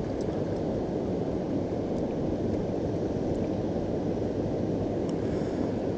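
Steady, even rush of water pouring over a river spillway.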